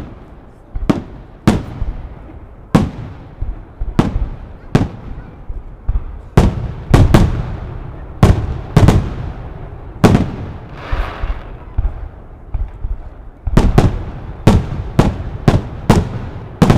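Aerial fireworks going off in a rapid, irregular string of sharp bangs, about one or two a second, each trailing a rolling echo. After a burst about ten seconds in, and again near the end, a crackling hiss follows the bangs.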